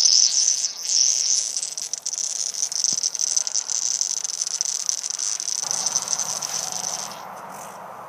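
Air leaking from a tire puncture around a screw lodged in the tread, bubbling and crackling with a high steady hiss through the soapy water poured over it: the sign of the leak's location. It fades out about seven seconds in.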